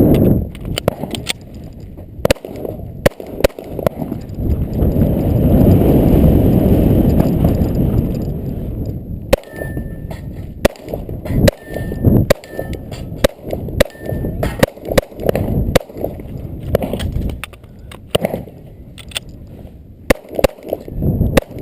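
Glock 21 pistol in .45 ACP firing a long, irregular string of shots. After several shots in the middle, steel targets ring briefly with a short clear tone. A few seconds of rushing noise come before that stretch.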